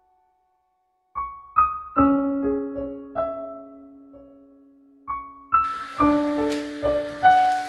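Slow piano music: after about a second of silence, single notes are struck and left to ring out, over a long held low note. A faint noise joins under the notes in the last two seconds.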